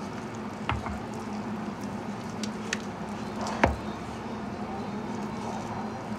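A hand mixing and kneading wet flour into dough in a glass bowl, with a few sharp knocks against the bowl; the loudest comes about three and a half seconds in. A steady low hum runs underneath.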